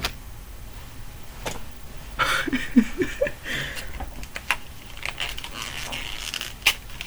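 Pokémon trading cards and packaging being handled: scattered clicks and short rustles, busiest from about two to four seconds in.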